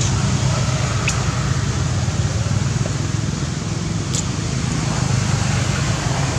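Steady low rumble, with two brief high chirps or clicks: one about a second in and one a little after four seconds.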